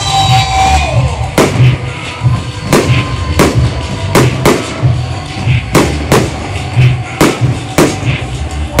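Fireworks display: sharp bangs of bursting shells about every half second to second, over loud music with a pulsing bass.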